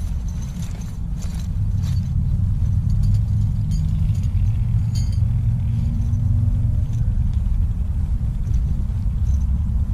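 A steady low rumble, with a few faint clicks in the first couple of seconds and again about halfway through.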